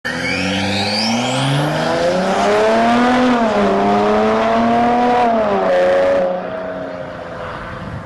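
Stage 2 tuned Audi A6 3.0 BiTDI twin-turbo V6 diesel accelerating hard from a launch, its engine note climbing in pitch, dropping briefly at two gear changes, then easing off about six seconds in.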